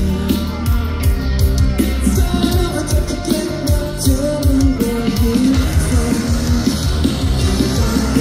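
Live rock band playing loudly: distorted guitars, bass and steady drum hits, with a singer's voice over them.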